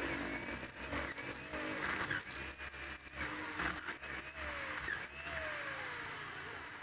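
Electric hand drill running, its 10.5 mm bit boring into the aluminium crankcase of a Honda TMX 155, drilling out a stripped stud-bolt hole so it can be re-tapped to 1/2 inch. Steady drilling that eases off near the end.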